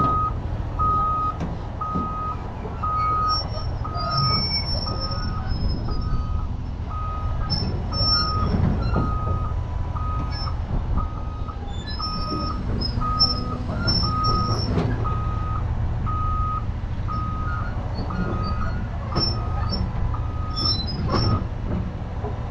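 Cat 320 excavator tracking forward, its travel alarm beeping steadily at one pitch, a little faster than once a second, over the diesel engine's low running rumble. A few sharp clanks from the steel tracks come through.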